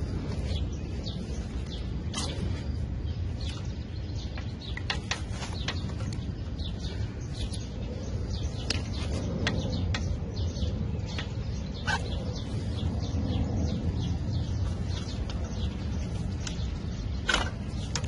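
Short bird chirps scattered over a steady low rumble, with light clicks and rustling from gloved hands working wiring connectors on a mower engine.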